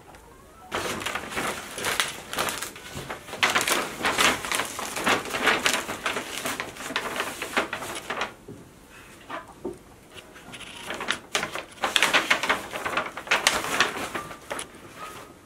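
A white paper shopping bag and wrapping crinkling and rustling as a purchase is packed, in two bouts with a short pause between.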